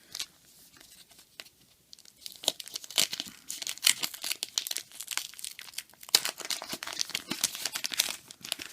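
Paper wrapper of an old trading-card pack being torn open and crinkled, a dense crackling that starts about two seconds in.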